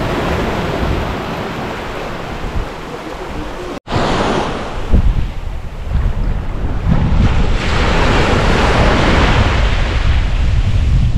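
Sea waves washing onto a beach, with wind buffeting the microphone as a heavy low rumble. The sound drops out for an instant about four seconds in, and the rumble is stronger after that.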